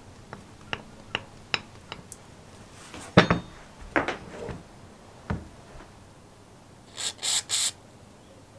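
Metal clutch parts of a lawnmower being handled and fitted together: a run of small metallic clicks, then a few louder knocks as the shoe, spring and pivot pin go into the drum. Near the end come three short hisses of aerosol lubricant sprayed through a straw onto the shoe's pivot.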